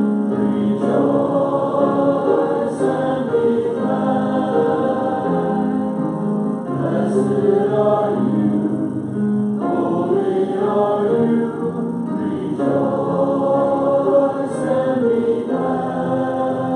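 Congregation singing a hymn together, many voices holding the melody in long phrases.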